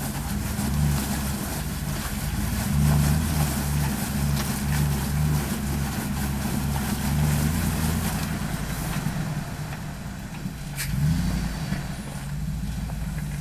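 Off-road 4x4's engine running at low revs, the throttle swelling and easing in short pulses as it works over slick ground. A sharp click about eleven seconds in, then a brief rev-up before it settles back to a steady low run.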